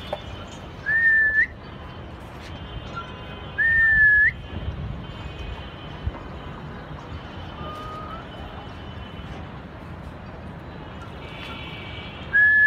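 A pigeon keeper whistling to his flying flock: three loud, short whistles, each held on one pitch and flicking upward at the end, about a second in, near four seconds, and near the end.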